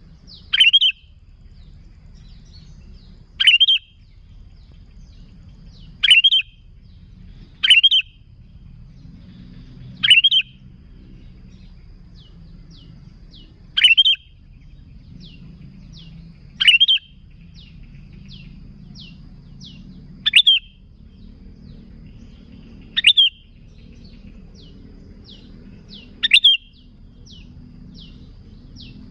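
Sooty-headed bulbul calling: a loud, short, upward-sweeping note every few seconds, about ten in all, with faint runs of quick, thin notes between them over a low steady background hum.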